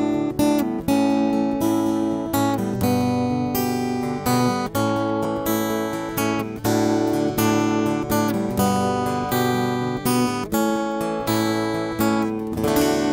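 Instrumental opening music: chords on a plucked string instrument with a guitar-like sound, struck at a steady, even beat.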